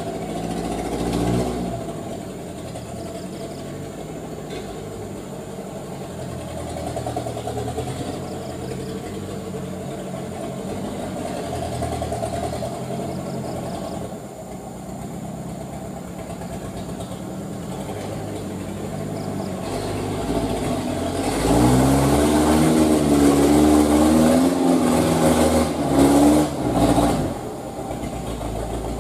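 Laden dump truck's diesel engine labouring through deep mud, running steadily for most of the time. About three-quarters of the way through it revs hard for several seconds with a wavering pitch, then the revs drop off sharply a couple of times.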